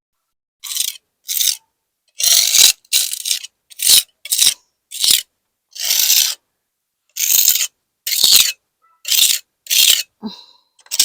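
A hand tool scraping along cracks in cement parging on a foundation wall: about a dozen short scraping strokes, each under half a second, with brief gaps between.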